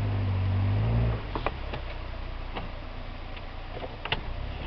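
A motor hums steadily and stops abruptly about a second in. Scattered light clicks and knocks follow.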